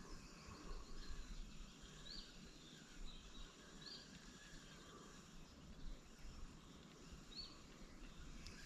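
Faint outdoor quiet with a low rumble, and a small bird giving a few short high calls, each rising then dropping, spaced a second or more apart.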